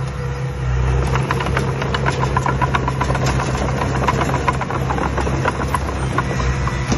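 Construction machine engine running steadily, with an irregular clatter of small knocks and rattles from about a second in.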